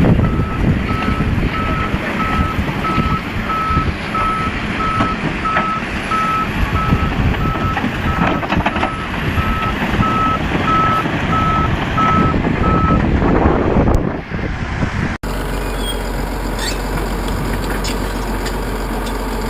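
Heavy machine's reversing alarm beeping steadily, about two beeps a second, over diesel engine and track noise; the beeping stops about 13 seconds in. After an abrupt change about 15 seconds in, a steady engine hum.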